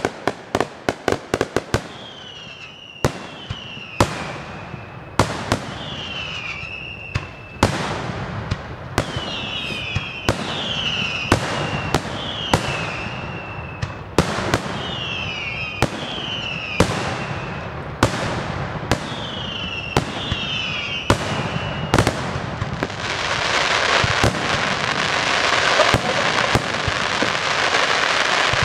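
Daylight fireworks display. It opens with a rapid string of sharp bangs, then loud shell reports come about once a second, many followed by a short whistle falling in pitch. For the last five seconds the bangs give way to a dense, continuous crackling.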